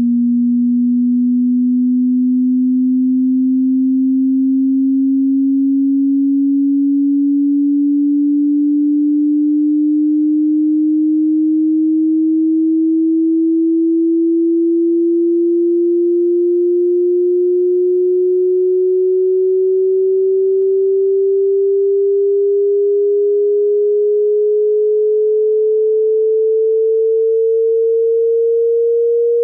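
Pure sine test tone for a hearing test, one steady, clean pitch gliding slowly upward by about an octave at an even loudness.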